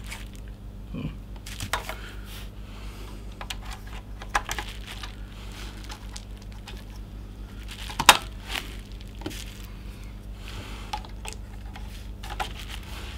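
DDR3 memory modules pushed down into motherboard DIMM slots, with scattered small clicks and handling noise as the latches snap shut; the sharpest click comes about eight seconds in. A steady low hum runs underneath.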